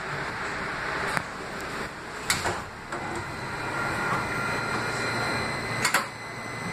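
Interior of a 2005 Kinki Sharyo light rail car coming to a stop at a station platform: steady running noise, a few sharp clunks about a second, two and six seconds in as the sliding doors work, and thin steady high tones from about three seconds in.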